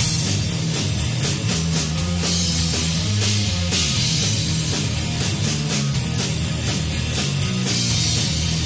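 A rock power trio playing live: distorted electric guitar, electric bass and drum kit, with the drums keeping a steady beat. Crash cymbals wash over the band about two seconds in and again near the end.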